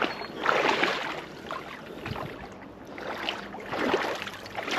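Water splashing and sloshing in two surges as a large hooked ide thrashes at the surface while it is played in.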